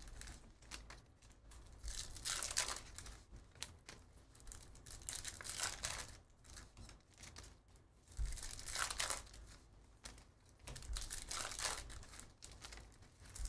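Foil wrappers of Bowman University Chrome basketball hobby packs being torn open and crinkled by hand, in about four short bursts of rustling.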